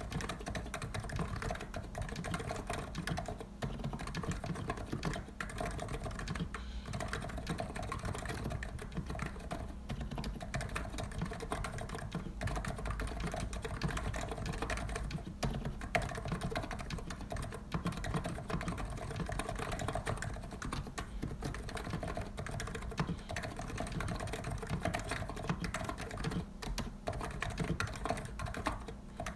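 Continuous typing on a COX Empress electrostatic capacitive keyboard with 50 g switches: a dense, fast stream of key strokes, broken only by a few very short pauses.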